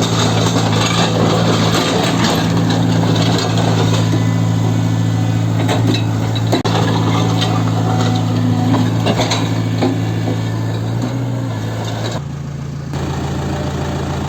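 Tata Hitachi Zaxis 120 excavator's diesel engine running steadily, with scattered metallic clanks over it. The engine note changes about twelve seconds in.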